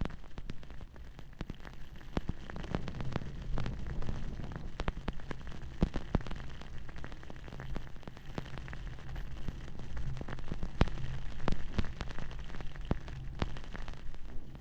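Skis running over snow, with many sharp clicks and scrapes scattered throughout, over a steady low rumble of wind on the microphone.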